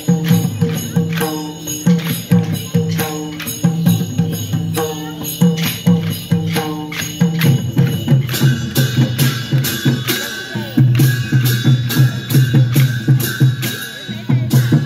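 Traditional Newari festival music accompanying a dance: drums and clashing cymbals keep a steady, fast beat, and a held high note comes in about halfway through.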